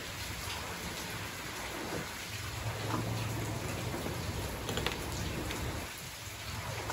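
Steady rain falling, an even hiss, with a few faint light taps from aluminum parts being handled; a low hum comes in about two seconds in.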